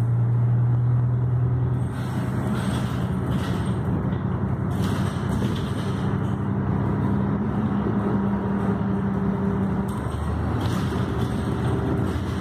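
City bus engine and drivetrain running, heard from inside the passenger cabin. Its engine note steps up in pitch about two seconds in and falls back about ten seconds in.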